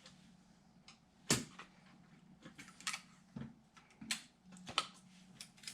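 Irregular sharp clicks and light knocks of hard parts being handled, about six in all, the loudest about a second and a half in.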